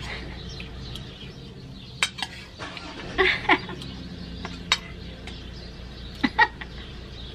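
Metal spoon and fork clinking against an enamel plate during a meal of fish and rice: a handful of short, sharp clinks spread out over several seconds.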